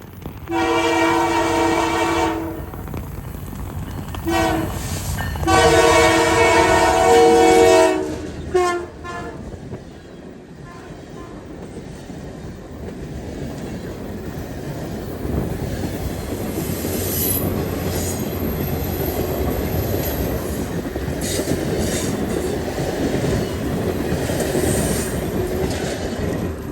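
Diesel locomotive horn sounding four blasts: long, short, long, short. Then the steady rumble of the passing train, which grows louder through the second half.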